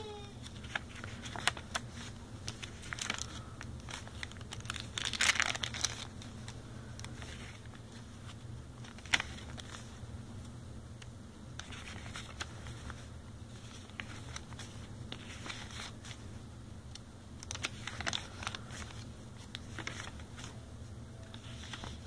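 Pages of a handmade paper journal being turned by hand: intermittent rustling and crinkling of coffee- and tea-dyed paper, loudest about five seconds in, with a single sharp tick near nine seconds.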